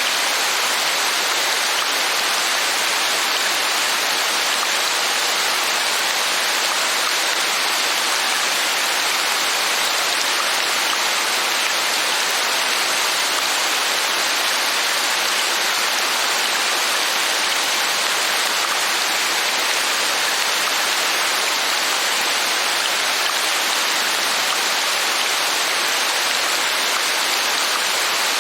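Steady rain falling, an even, unbroken hiss of many drops that does not change.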